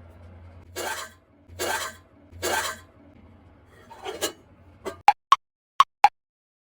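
Three scraping or rubbing strokes about a second apart, two fainter ones after them, then four short sharp clicks near the end.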